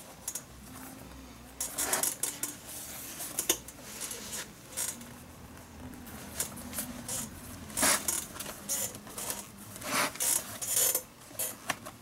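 Leather lace being threaded and pulled through the holes of a leather baseball glove with a lacing needle, giving irregular short scrapes and clicks as the glove is handled.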